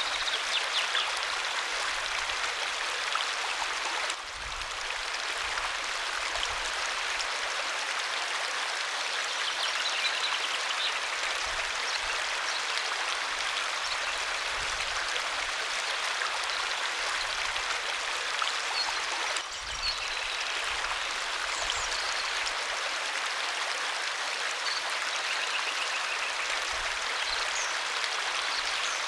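Waterfall pouring steadily, a dense, even rush of falling water that dips briefly twice.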